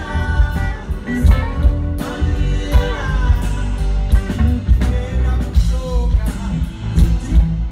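A live band playing with a singer: drums, keyboards and guitar under a sung vocal line, through stage speakers, with a heavy, steady beat.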